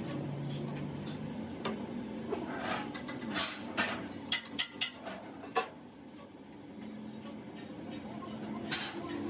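Sharp metal clinks and knocks as a driveshaft's universal-joint yoke is fitted into a lathe chuck and the chuck jaws are handled, several close together in the first half and one more near the end, over a low steady hum.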